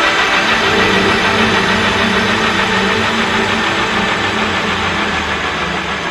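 Background music with a dense, gritty texture and held notes that change every so often, slowly fading out near the end.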